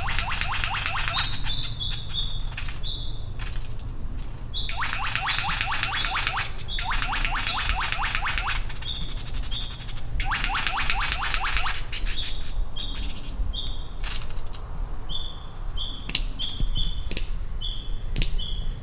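Superb lyrebird singing: four bursts, each about a second long, of very rapid descending clicks, with runs of short high notes of even pitch repeated about twice a second between them.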